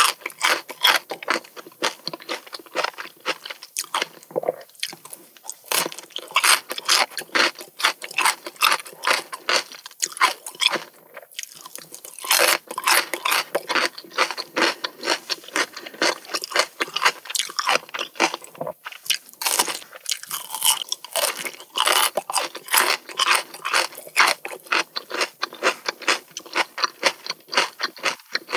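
Crisp crunching and chewing of Korean melon (chamoe) slices eaten with the rind, a rapid run of wet crunches several a second with a few short pauses.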